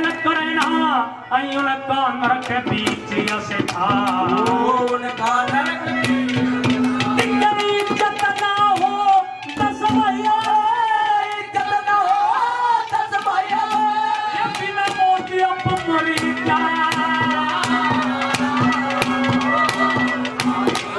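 Haryanvi ragni performed live: a male singer's voice with hand-drum accompaniment and a sustained harmonium-like note underneath, the drum strokes coming steadily.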